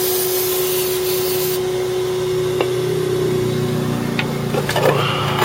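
Vacuum cleaner running steadily on the oil fill, drawing air in through the rusted-through oil pan. An aerosol can of brake cleaner hisses as it is sprayed onto the pan, stopping about one and a half seconds in. The motor's hum shifts lower about three seconds in.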